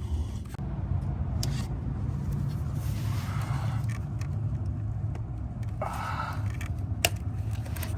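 Hands and a tool working among engine-bay parts: scraping and rustling, with a sharp metallic click about seven seconds in, over a steady low rumble.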